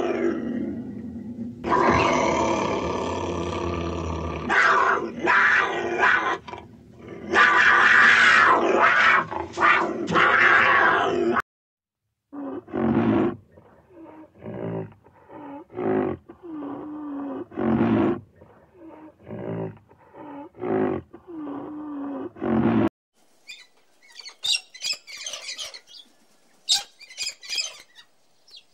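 Three wild animals in turn. First a cougar gives long, loud calls for about eleven seconds. Then a white rhinoceros makes short calls, about one a second. From about 23 seconds in come the faint high calls of a cockatoo.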